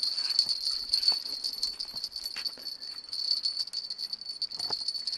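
A steady chorus of insects trilling at one high, shrill pitch, made of very rapid pulses. A few faint clicks, and a soft knock near the end.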